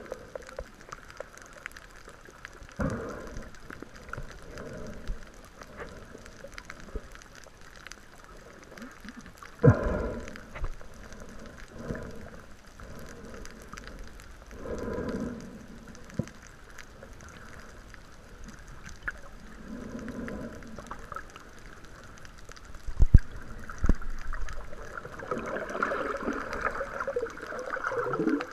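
Water sloshing and gurgling, muffled, with irregular swells and a few sharp knocks, the loudest a little past two-thirds of the way through.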